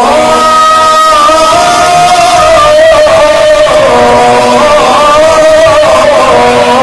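A man's solo voice chanting in the Arabic melodic recitation style, sung into a handheld microphone, drawing out long held notes with ornamental turns.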